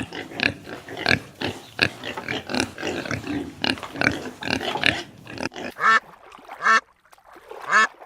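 Animal calls: a quick run of many short calls for about five and a half seconds, then an abrupt change to a few separate, evenly pitched calls about a second apart.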